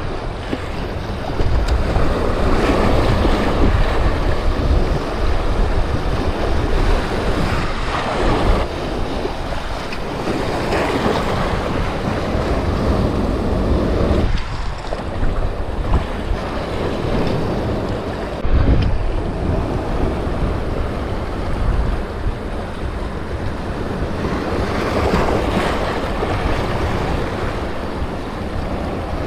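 Surf washing over a rocky reef shoreline, swelling and easing every few seconds, with wind buffeting the microphone as a heavy low rumble.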